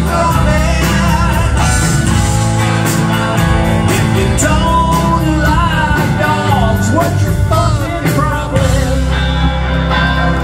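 A rock band playing live: electric guitars, electric bass and a drum kit keeping a steady beat, with a lead melody that bends in pitch through the middle.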